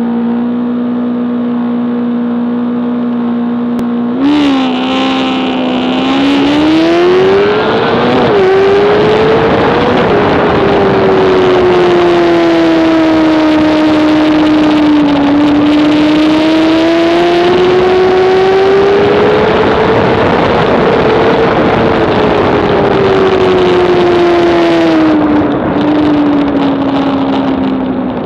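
Honda CBR600RR inline-four sport-bike engine held at steady high revs, then launching about four seconds in: the revs climb with two quick upshifts, and heavy wind rushes over the onboard microphone. The engine note then rises and falls through the corners, and the wind noise drops away near the end as it backs off.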